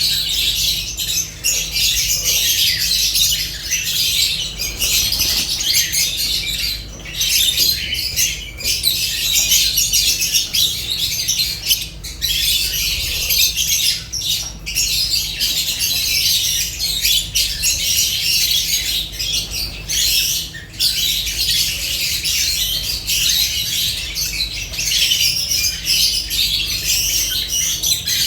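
Lovebirds calling without a break in shrill, high, rapid chirps that overlap one another, with a few brief pauses.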